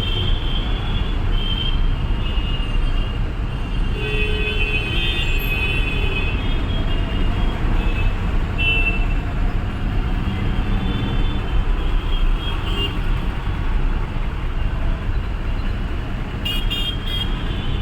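Busy road traffic with other vehicles' horns honking again and again: short high toots, and several horns sounding together about four to six seconds in, over a steady low rumble of engines and road noise. The honking is needless, sounded in slow, jammed traffic.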